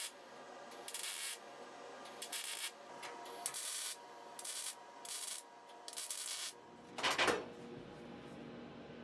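MIG welder laying short tack welds on steel sheet: about six brief crackling, hissing bursts, each under a second, with pauses between them. A louder single knock comes about seven seconds in.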